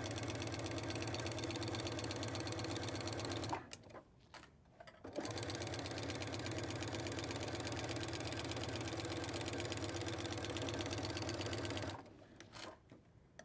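Sewing machine stitching at a steady, fast rate. It stops about three and a half seconds in, starts again a second and a half later, and stops near the end.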